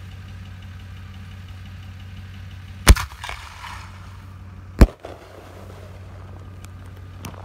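Memory Fireworks M-3 aerial shell fired from a mortar tube: a sharp bang as it launches about three seconds in, then a second sharp bang as the shell bursts overhead about two seconds later.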